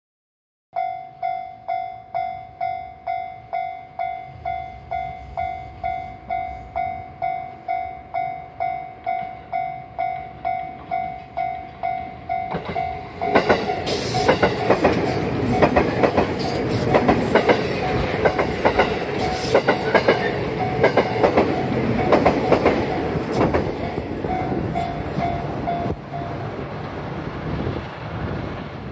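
Japanese level-crossing warning bell ringing about twice a second. About 13 seconds in, a JR Kyushu 783-series electric limited express train passes close by at speed, wheels clacking over the rail joints, while the crossing bell rings on underneath. The train's noise dies down near the end.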